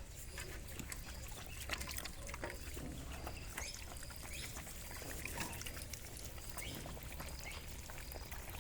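Puppies lapping milk: a faint, steady run of quick wet licks and small clicks.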